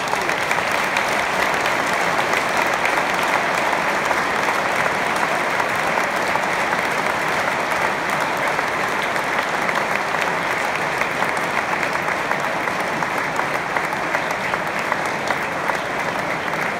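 Large audience applauding, a steady even clapping that holds throughout.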